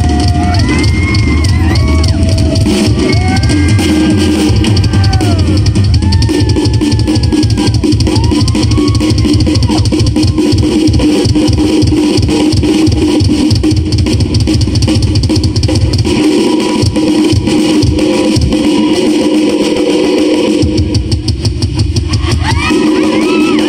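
Live rock band playing loud: a drum kit keeps a busy beat under electric guitar lead lines that bend and slide in pitch through the first half. The bottom end thins out for a few seconds past the middle, then comes back in.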